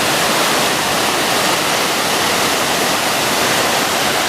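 Water spilling over a small dam, a steady, loud rush of falling water.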